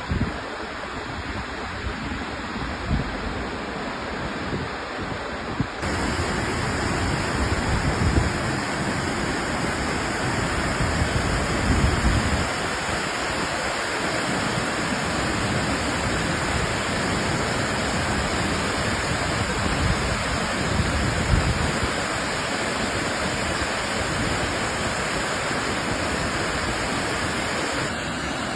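Waterfall: falling water rushing steadily, with a sudden change in tone about six seconds in. Low buffeting, like wind on the microphone, swells now and then.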